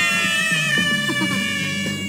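A child's long, high-pitched shriek, held for about two seconds and stopping just at the end, over background guitar music.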